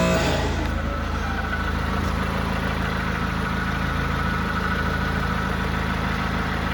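1996 Honda Accord engine idling steadily after its timing-belt repair and reassembly, running smoothly.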